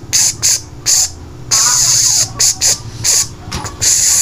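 A man hissing sharply through his teeth again and again, short and longer hisses at irregular intervals, reacting to the sting of being tattooed.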